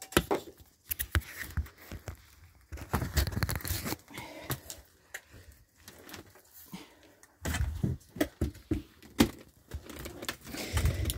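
Irregular crunching, rustling and knocking of footsteps and handling in dry leaves, litter and broken debris, in uneven clusters with a few sharper knocks.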